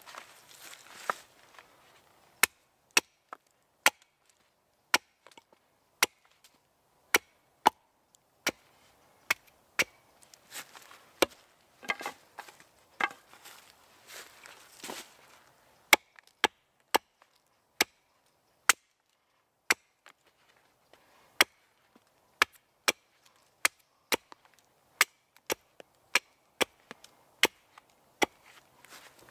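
Hatchet chopping a point onto a wooden stake held upright on a chopping stump: a long run of sharp, irregular chops, roughly one or two a second.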